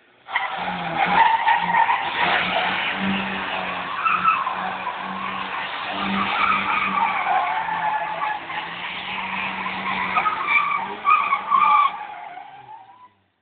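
Car tyres squealing in long, wavering screeches as a sedan slides sideways, drifting on asphalt. The squeal starts suddenly and fades out near the end.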